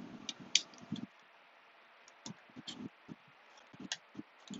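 Small metal clicks and light knocks of a screwdriver, screws and parts being handled while a laptop is taken apart. A cluster of clicks and knocks in the first second, a brief pause, then scattered single ticks.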